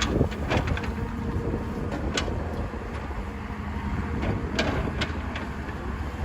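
Heavy excavator diesel engine running steadily, with several sharp clanks and knocks over it.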